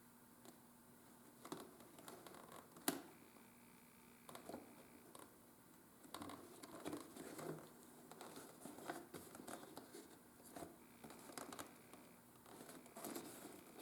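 Faint handling sounds of hand leatherwork: soft rustles, scrapes and small clicks of leather and hand tools, with one sharper click about three seconds in, over a faint steady hum.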